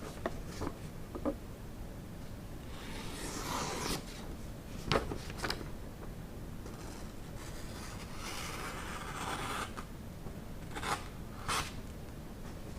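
Kitchen knife blade rubbing and rasping in two strokes of about a second each, some five seconds apart, with a few sharp clicks between them.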